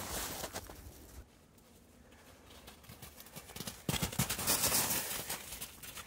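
Footsteps crunching in snow: a short run of crunching at the start, a pause, then a second run about four seconds in lasting a second and a half.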